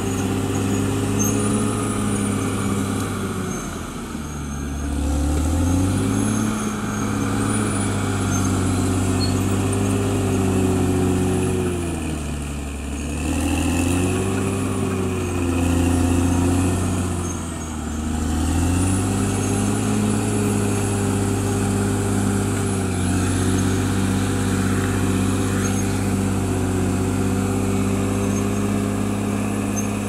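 Caterpillar D6R XL bulldozer's diesel engine running hard as the blade pushes earth and fallen timber. Its pitch sags and recovers several times as the engine is loaded, with a faint high whine rising and falling along with it.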